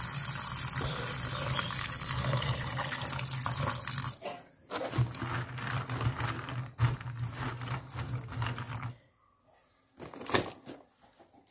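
Tap water running into a steel bowl of soya chunks as they are washed by hand, with a steady low hum under the water. The water stops about nine seconds in, and a single knock follows.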